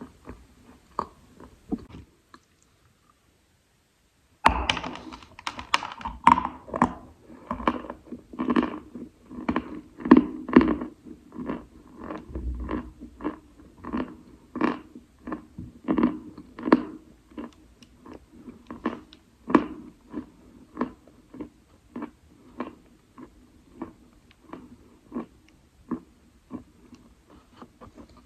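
Wet Khrapovsky chalk being bitten and chewed. After a short silence near the start, a steady run of crunching chews follows, about one or two a second, growing softer toward the end.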